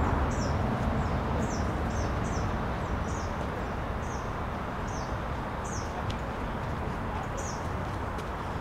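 A songbird calling over and over: short, high chirps that each slide down in pitch, a dozen or so at uneven intervals, over a steady background hiss.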